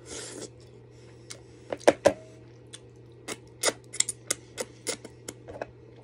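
Wet mouth sounds of fingers being sucked and licked clean of sauce: a short slurp at the start, then a run of sharp smacking pops, the two loudest about two seconds in.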